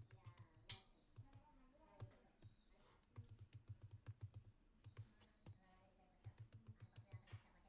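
Faint computer keyboard typing. A quick run of key clicks comes about three seconds in and another near the end, with a few single clicks in between.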